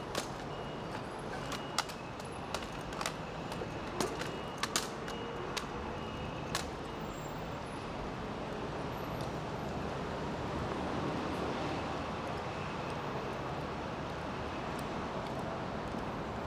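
Honor guard rifle drill: a dozen or so sharp, irregular claps and knocks as white-gloved hands slap the rifles and rifle butts meet the pavement, over the first seven seconds or so. After that only a steady outdoor background noise remains.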